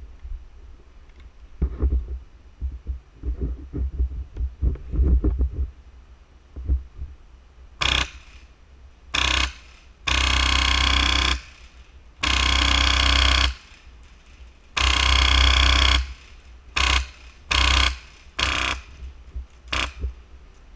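Airsoft rifle with a Wolverine SMP HPA engine firing full-auto in bursts: two short bursts, then three long bursts of over a second each, then four more short bursts. Before the firing, a few seconds of irregular low knocks and thumps.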